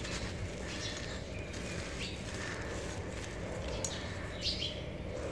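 Hands crushing and crumbling dry charcoal-and-cement lumps, giving a string of short gritty crunches as the crumbs break apart and fall onto loose grit. The loudest crunch comes about four and a half seconds in.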